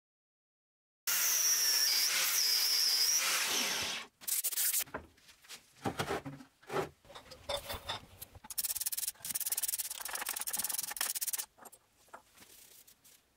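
Abrasive rubbing and scraping, like sanding or filing on a workpiece. It starts about a second in as a loud continuous rasp with a thin high whine, breaks into irregular single strokes, then runs as a quick string of strokes that stops near the end.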